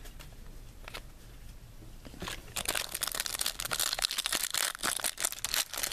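Foil wrapper of a trading-card pack crinkling and tearing as it is opened by hand, with a dense run of sharp crackles starting a little over two seconds in.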